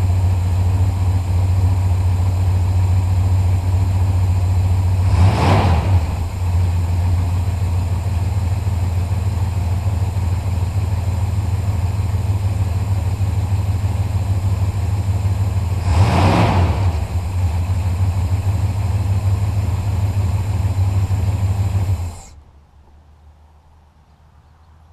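1964 Chrysler Windsor's 361 cubic inch wedge V8 idling steadily, blipped twice with a quick rev and drop about five and sixteen seconds in, then shut off a few seconds before the end.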